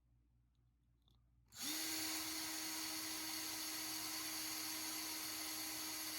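Electric drill spinning up about a second and a half in and running at one steady speed, drilling out the rivet post of a diecast toy car for a wheel swap.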